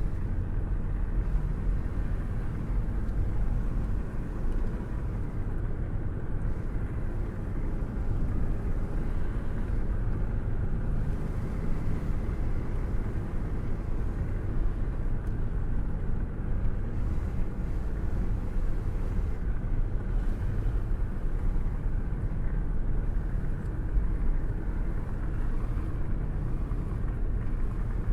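Car cruising with a window open: a steady low rumble of wind and road noise.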